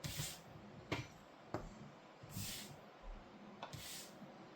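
Faint light clicks of chess pieces being picked up and set down on a board, with a few soft rustles of hand movement.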